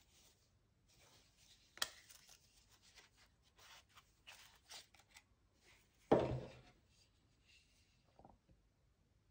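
Leather knife sheath being handled: a sharp click as the snap strap is popped open, then leather rubbing as the fixed-blade knife is drawn out. About six seconds in there is a louder thump, the loudest sound here, followed by a smaller knock near the end.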